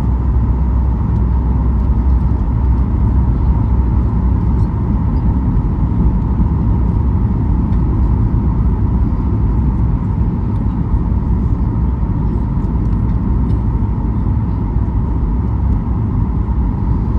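Steady cabin noise of a Boeing 737 MAX 8 in flight: the deep rumble of its CFM LEAP-1B engines and rushing airflow, with a constant mid-pitched hum over it.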